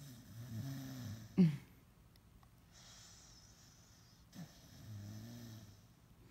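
A small pit bull-type dog snoring: two long, pitched snores a few seconds apart, the first ending in a sudden loud snort, with a breathy hiss between them.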